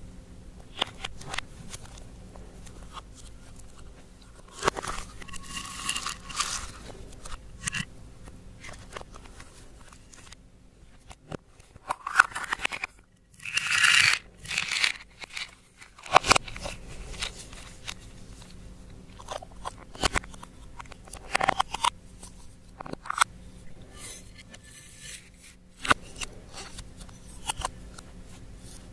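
Slime being worked by hand, with irregular sticky clicks and crackles and louder squishing bursts a few times.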